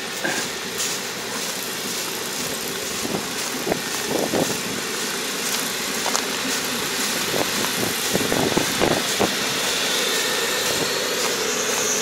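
Kubota ER470 combine harvester running while it cuts rice, a steady engine and machinery hum that grows gradually louder as it approaches. A high whine comes in and rises near the end.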